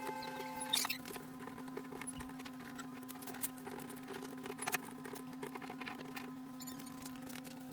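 Scattered light taps, clicks and knocks of objects being handled, over a steady low hum.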